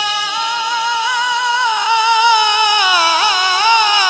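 A man singing devotional Urdu/Punjabi kalam into a microphone, drawing out long held notes that step down in pitch, with ornamental turns in the voice growing more elaborate toward the end.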